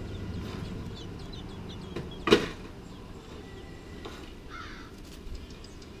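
An adult American robin leaving its nest under a deck: one short, harsh burst about two seconds in, much the loudest sound. Faint, short, high bird chirps come and go throughout.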